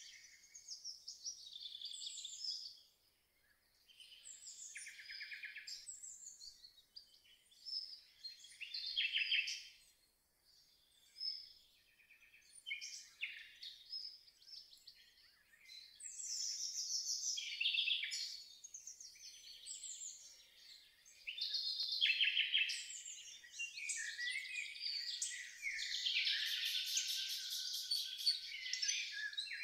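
Several songbirds singing and calling, with short overlapping phrases and trills that come and go with brief lulls and grow busiest near the end.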